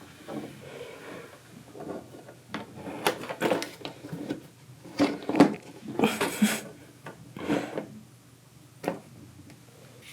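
Kittens scrambling about a cat playhouse: irregular knocks, bumps and short scrapes, busiest in the middle, with the loudest knock about halfway through.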